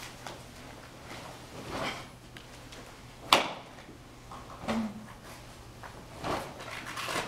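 Swishes and snaps of a karate uniform and bare feet striking the mat during a karate kata, with one sharp crack about three seconds in.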